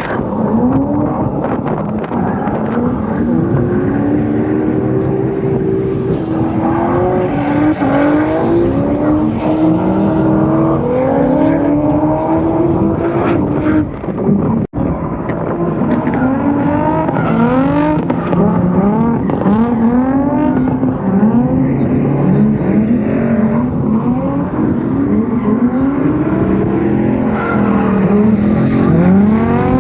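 Drift cars' engines revving hard, their pitch climbing and dropping again and again as the drivers work the throttle, over a steady noise of tyres. The sound breaks off for an instant about halfway through.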